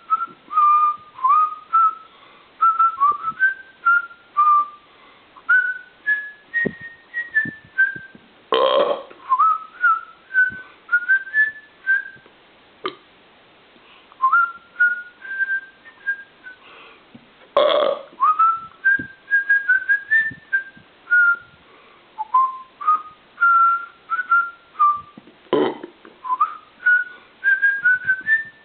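A person whistling a classical melody note by note, the pitch stepping and gliding. The tune is broken three times by a loud belch, roughly every eight or nine seconds.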